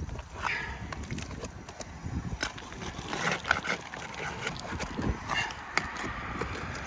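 Scraping and scattered short knocks of nails being worked loose and pulled from asphalt roof shingles.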